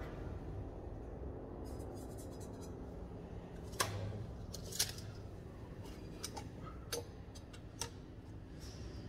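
A few sharp clicks and light metallic taps from a bent steel intake pipe and a tape measure being handled and fitted in an engine bay. The two clearest clicks come about four and five seconds in, with smaller ticks after, over a steady low workshop hum.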